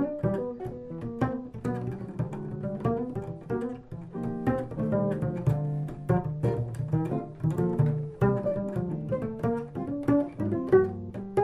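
Upright double bass played pizzicato: a quick, continuous run of plucked notes in a jazz bass solo.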